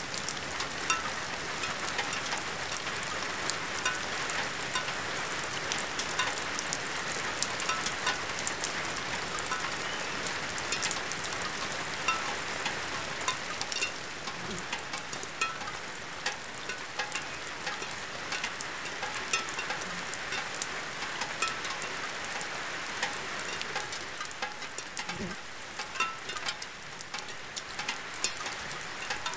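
Dense, steady crackling noise thick with small clicks and pops, like rain or frying, becoming a little quieter about halfway through.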